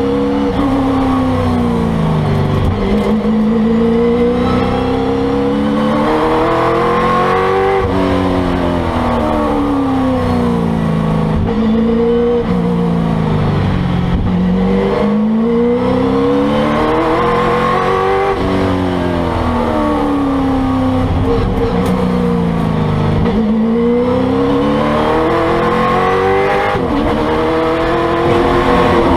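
A 1970 Camaro Trans Am race car's V8 engine heard from inside the cabin, its revs climbing hard, then dropping, over and over as the car accelerates along the straights and slows for corners.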